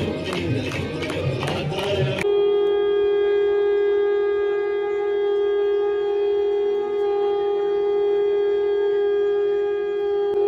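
Crowd noise for about two seconds, then, after an abrupt change, a conch shell (shankh) blown in one long, steady note lasting about eight seconds. This is the conch call of a riverside aarti ceremony.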